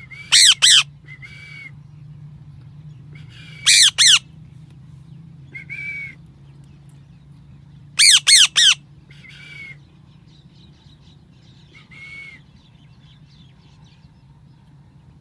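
Parrot squawking: loud, harsh calls that drop in pitch, in quick groups of two, two and then three, with softer single calls in between.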